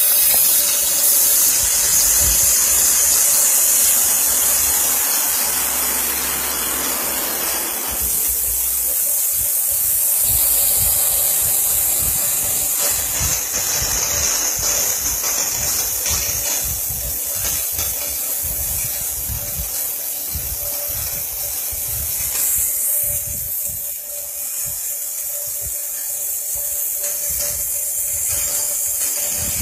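CNC router spindle running at speed with its bit milling a plastic sheet: a steady high hiss and whine of cutting. The cutting noise eases about eight seconds in.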